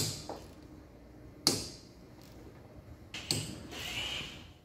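Sharp metallic knocks with a brief ringing tail, one at the start, one about a second and a half in and one near three and a half seconds in, from hand tools working the tight security Torx bolts on the sheet-steel lid of a Nissan Leaf battery pack. A softer noise follows near the end.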